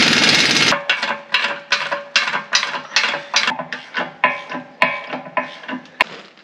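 Cordless impact wrench hammering on the wheel-motor bolts, cutting off abruptly under a second in. It is followed by a long ratchet handle clicking as the bolts are tightened: a sharp, slightly ringing metallic click about twice a second, fading near the end.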